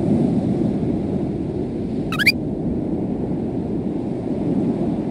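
Steady low rumble of an ocean-wave ambience loop. About two seconds in, a short chirp of three quick rising notes sounds.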